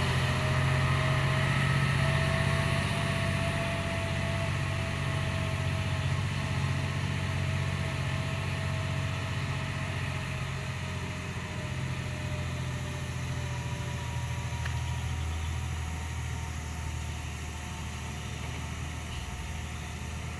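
Hino 500 truck's Euro 4 diesel engine running, a low steady drone with a faint whine above it, very smooth-sounding, fading slowly as the truck moves away.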